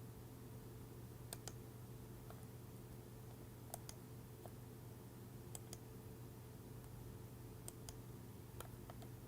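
Faint computer mouse clicks, sparse and often in quick pairs, over a steady low electrical hum.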